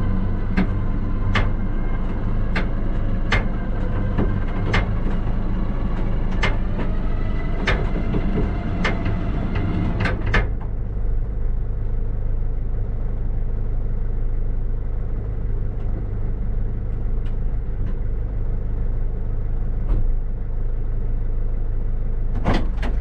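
Recovery truck winch pulling a car up onto the flatbed: a steady mechanical drone with sharp clicks about once a second over the truck's low engine hum. The winch stops about ten seconds in, leaving the engine hum, and a few quick knocks come near the end.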